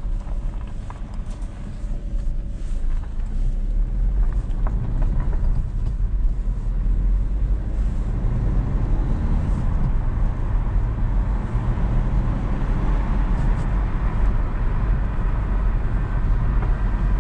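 Citroën DS4 heard from inside the cabin as it pulls away and gathers speed, engine running with tyre and road noise. The engine note climbs and the sound grows louder a few seconds in.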